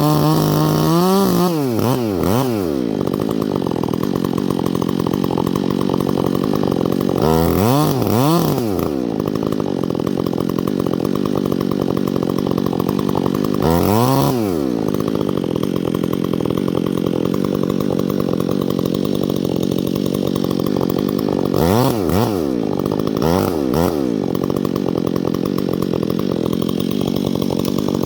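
Chainsaw engine running steadily throughout, with its pitch swinging up and back down several times as it is revved, about five times across the stretch.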